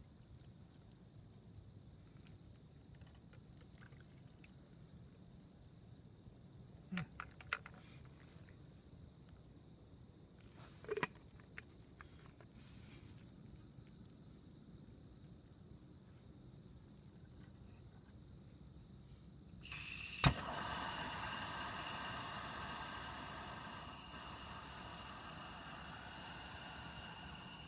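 Crickets or other insects trilling steadily on one high note. A few faint knocks; about two-thirds of the way through, a sharp click, after which a steady hiss joins the trilling.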